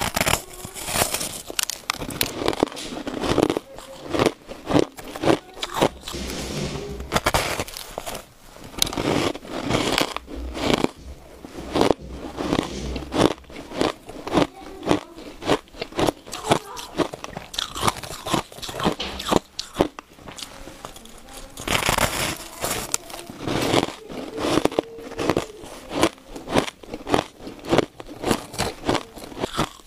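Powdery, sandy shaved ice being bitten and chewed: a dense run of crisp crunches, several a second, with brief lulls between mouthfuls.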